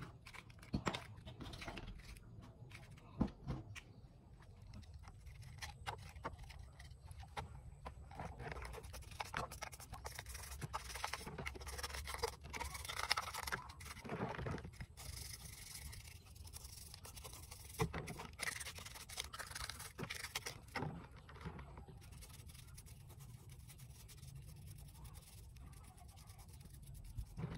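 Small plastic parts clicking and knocking on a wooden table, then a toothbrush and hands scrubbing the plastic parts of a mini drone in a basin of soapy water. The scrubbing is densest through the middle and quieter near the end.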